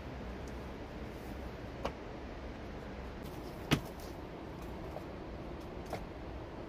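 Rocks knocking against each other as stones are set onto a dry-stacked stone wall: three short sharp clacks, the loudest about halfway through, over a steady background hiss.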